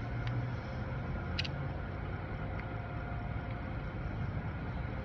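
Steady low mechanical hum in the background, with a faint click about one and a half seconds in.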